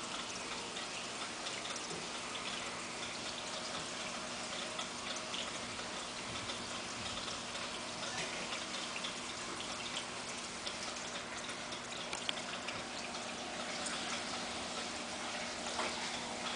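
Steady trickle of water from a Tetra waterfall filter in a reptile terrarium, with a low steady hum and a few faint scattered clicks.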